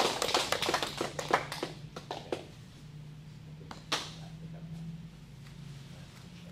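Applause from a small audience thinning out over the first two seconds into a few scattered claps, over a low steady hum. A single sharp click about four seconds in.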